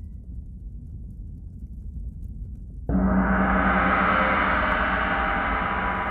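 A gong struck once about three seconds in, then ringing on and slowly fading. Before it there is only a faint low rumble.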